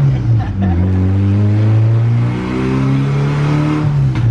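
Turbocharged minivan engine at wide-open throttle during a chassis-dyno pull, heard from inside the cabin. The engine note climbs, dips briefly about halfway, climbs again, then falls away near the end.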